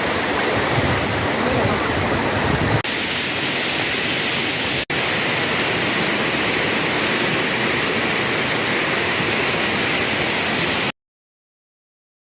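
Waterfall rushing with a steady, loud roar of falling water, interrupted by two split-second breaks; the sound cuts off abruptly near the end.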